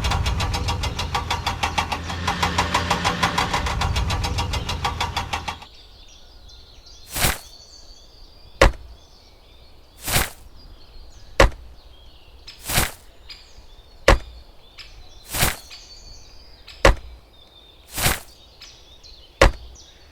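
An engine chugging with quick, even pulses, which cuts off suddenly about five and a half seconds in. Then come ten sharp knocks at an even pace, about one every second and a quarter, with faint bird chirps behind them.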